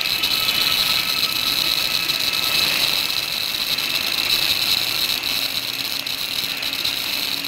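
KC 100 gas cutting and welding carriage at work: a steady hiss with a faint low hum underneath.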